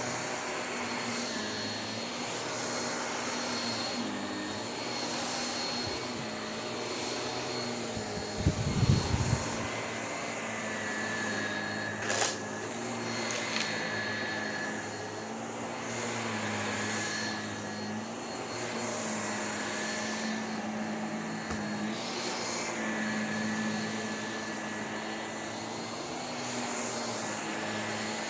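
Vacuum cleaner running steadily, its hum swelling and dipping about every two seconds as it works. A short, loud low thump comes about nine seconds in, and a sharp click about three seconds later.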